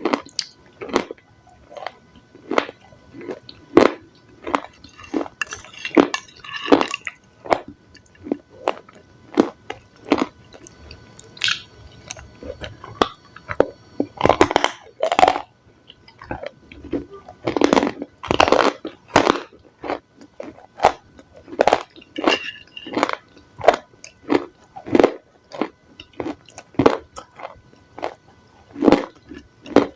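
Close-miked crunching and chewing of raw salad, a steady run of sharp crunches about twice a second, with a few louder bites in the middle.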